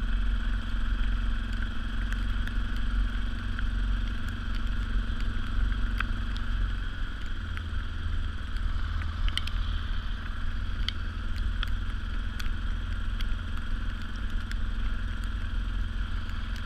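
Yamaha Raptor 700R ATV's single-cylinder engine running at a steady pace, with a constant low rumble and scattered sharp ticks.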